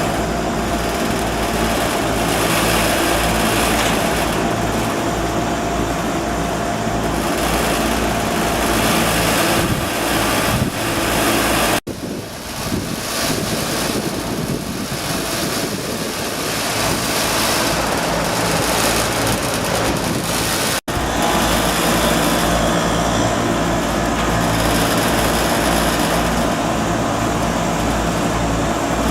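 HVAC unit running: a steady mechanical hum and whir with several steady tones. It breaks off abruptly a little under halfway through, runs on with less low hum, and breaks off abruptly again about two-thirds through, where the fuller hum returns.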